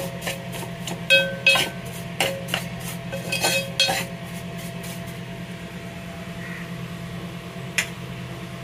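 A metal spoon clinking and scraping against a metal pot while stirring vermicelli frying in ghee: a run of sharp ringing knocks in the first four seconds, then one more near the end, over a steady low hum.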